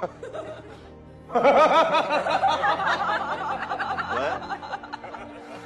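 Giggling laughter over background music, starting about a second in after a quieter stretch.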